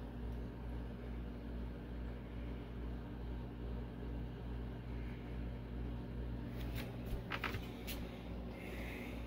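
Steady low mechanical hum from a small motor or fan, pulsing about twice a second, with a few sharp clicks about seven seconds in and a short breathy hiss near the end.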